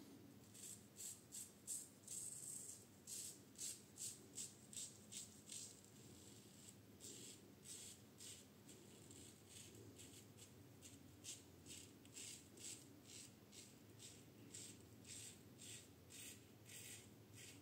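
Double-edge safety razor (Goodfellas Syntesi with a Kai blade) shaving beard hair through lather: a quiet run of short rasping strokes, about two a second, with fewer through the middle.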